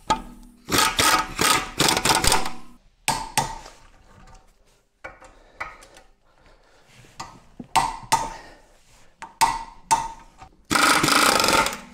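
Impact wrench hammering in a series of bursts, a long run early on and another near the end with shorter ones between, as bolts on the rear brake and hub are tightened back up.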